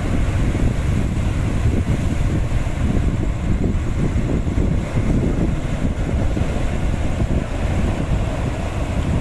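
Sea waves breaking and washing against a rocky shore, under a steady low rumble of strong wind buffeting the microphone.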